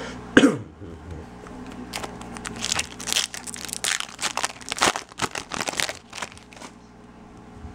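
Foil wrapper of a 2013 Bowman Chrome trading-card pack being torn open and crumpled by hand. Starting about two seconds in, there are a few seconds of dense crinkling and crackling.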